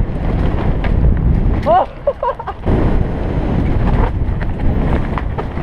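Wind buffeting a bike-mounted or helmet action-camera microphone, together with the mountain bike rattling and its tyres running over a rough dirt trail at speed. A short pitched squeal or call comes about two seconds in.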